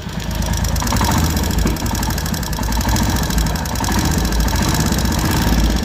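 Royal Enfield Hunter 350's single-cylinder engine idling with a rapid, even tappet tick. The valve clearances are out of adjustment and due for a tappet setting.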